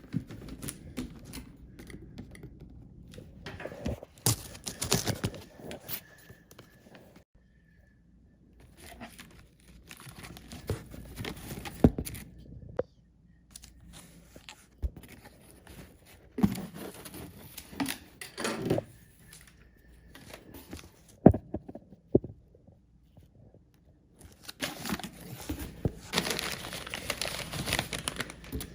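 Packaging of a mail-order orchid shipment being opened by hand: paper and wrapping tearing and crinkling in irregular bursts with short pauses, and a few sharp knocks.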